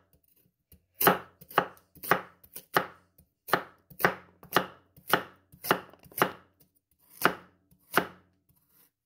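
Knife slicing through carrots and striking a cutting board: a run of even chops about twice a second, starting about a second in.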